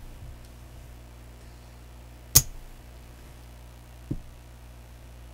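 Casino chips and dice being handled on a felt craps table: one sharp click a little over two seconds in and a softer knock about four seconds in, over a low steady hum.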